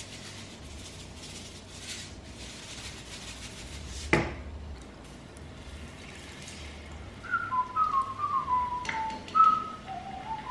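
A man whistles a short tune of single, gliding notes through the last few seconds. Before that there is a soft hiss and, about four seconds in, a single sharp knock.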